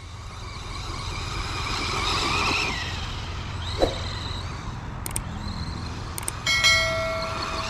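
FTX Crossbow 1/10 brushless RC truggy being driven, its electric motor whining up and down in pitch with the throttle over a steady rumble of wheels and drivetrain. It ends in a steady held whine.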